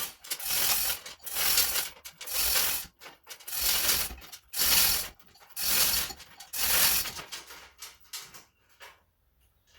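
Manual chain hoist being worked by its hand chain, the chain rattling through the hoist and the ratchet clicking in about eight separate pulls, roughly one a second, each one lifting the mower a little. The pulls get fainter and stop near the end.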